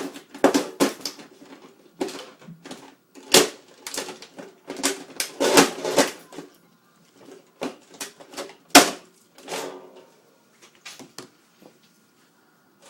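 Irregular clicks, taps and knocks on the casing of a Zenith DVD/VCR combo player as it is handled and closed up, with two harder knocks about three and a half and nine seconds in, then thinning out near the end.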